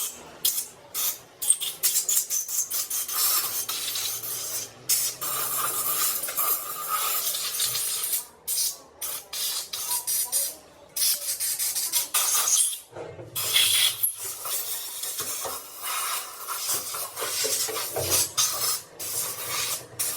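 Scraping and rasping on metal from hand work on hydraulic pump parts, going in uneven strokes with many sudden breaks.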